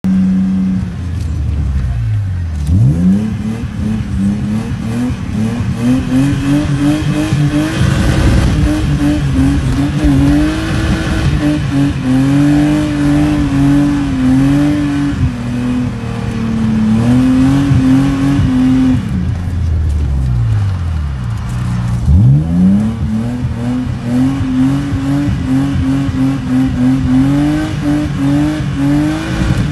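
BMW's engine, heard from inside the cabin, being revved hard in a drift. The revs climb steeply a few seconds in, stay high and bounce up and down, fall away around twenty seconds in, then climb steeply again a couple of seconds later.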